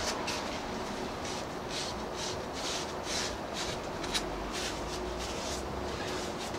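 Hands rubbing and pressing along the edges of a vinyl window sash and its freshly set glass pane: a run of soft rubbing strokes about two a second, with a single light tap a little after four seconds in.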